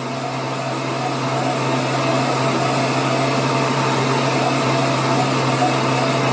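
Handheld heat tool blowing steadily, its fan motor running with a constant low hum as it dries wet paint on a small wooden craft piece.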